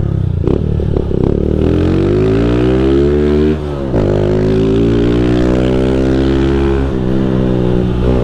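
Honda CG 160 motorcycle's single-cylinder four-stroke engine heard while riding. It slows at first, then pulls up in revs, with a short drop in loudness at a gear change about three and a half seconds in. After that it runs at a steady cruise.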